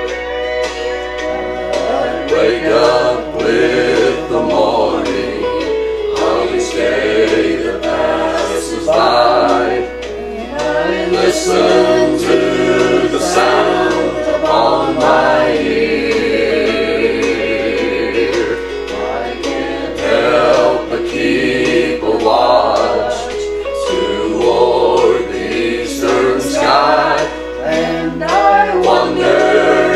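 A mixed family gospel quartet, two men and two women, singing in four-part harmony over an instrumental accompaniment with a steady bass line.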